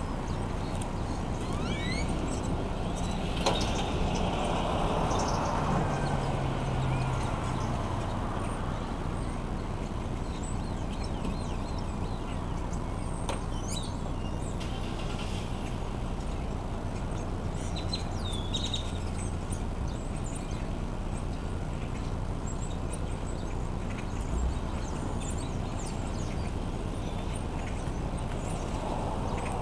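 Outdoor background noise, with a vehicle engine passing and dropping in pitch a few seconds in, and a few short bird chirps.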